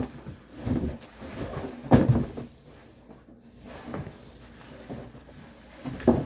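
Knocks and bumps of packaging being handled as a heavy animatronic body is pulled out of its cardboard box, with rustling between them; the loudest knock comes about two seconds in, with two more near the end.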